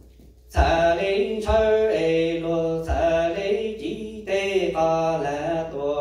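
Hmong txiv xaiv funeral chant: a man chants into a microphone in long, wavering held phrases, starting about half a second in and pausing for breath every second or so.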